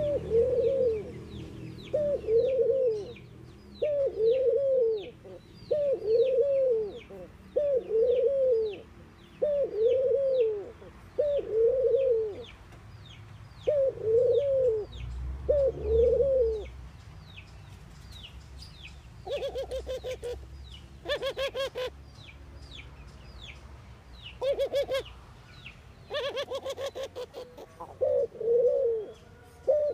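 Caged collared dove cooing: a run of short, low coos repeated about once a second, stopping about halfway and returning near the end. In the gap come two bursts of a rapid rattling call, and faint high chirps of small birds sound in the background.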